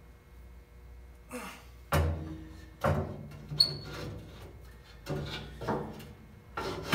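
An old engine being set down and shifted by hand in a steel engine bay: a series of metal thunks and clanks, starting about two seconds in and coming roughly a second apart, several followed by the steel body ringing briefly.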